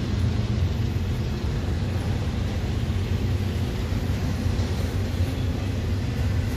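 Double-stack intermodal freight train's loaded container well cars rolling past, a steady low rumble of steel wheels on rail.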